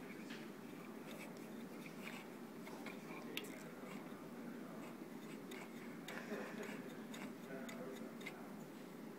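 Faint, scattered small clicks and light rubbing as fingers turn the loose metal bulkhead of a Turck connector on a circuit board, over a steady low hiss.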